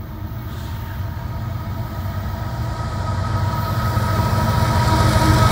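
Diesel freight locomotives approaching on the track, their engine rumble growing steadily louder, with a steady high whine over it.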